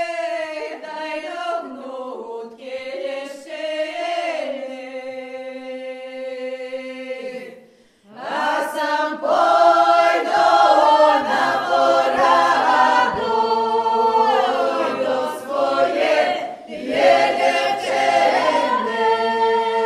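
Unaccompanied group singing of a folk song. A quieter sung phrase breaks off about eight seconds in, then fuller, louder singing resumes with a low held note beneath.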